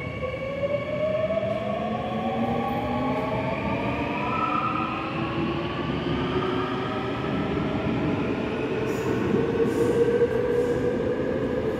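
Seoul Subway Line 9 electric train departing the station, its traction motors whining in several tones that rise steadily in pitch as it accelerates, over the rumble of wheels on rail. A few sharp clicks come near the end.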